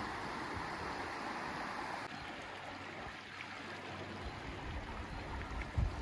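Clear mountain river flowing over its bed: a steady rush of running water that dips slightly about two seconds in. Brief low thumps come just before the end.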